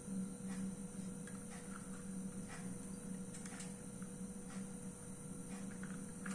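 Faint soft clicks every half second to a second from a hand chakli press being worked as it squeezes dough out into spirals, over a steady low electrical hum.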